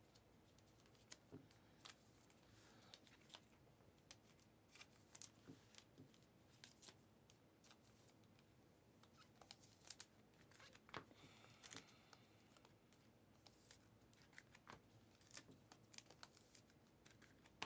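Faint, scattered clicks and crinkles of trading cards and foil pack wrappers being handled.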